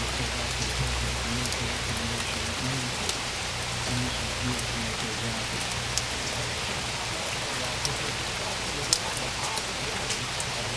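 Steady rainfall on a flooded yard and driveway, a constant hiss of rain with scattered sharp ticks of single drops hitting close by.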